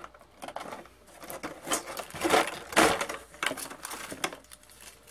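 Clear plastic packaging crinkling and rustling as a hand rummages in it, a run of irregular crackles that is loudest around the middle.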